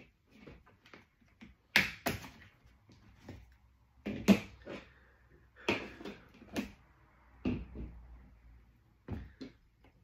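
Laptop being handled on a tabletop: a series of separate knocks and taps of its plastic case against the table and under the hands, the loudest about four seconds in.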